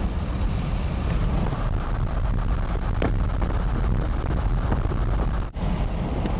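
Jeep Wagoneer driving at road speed: a steady rumble of engine, tyres and wind, which cuts out for an instant about five and a half seconds in.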